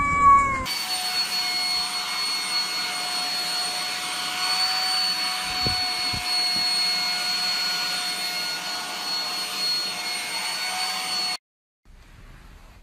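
A small electric motor running steadily, a high whine over a rushing hiss, cutting off suddenly near the end.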